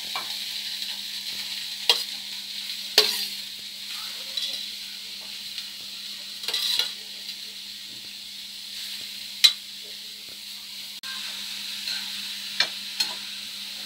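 Grated carrots sizzling as they are sautéed in hot ghee in a kadhai. A steel spoon scrapes and clinks against the plate and pan several times as the carrots are pushed in and stirred.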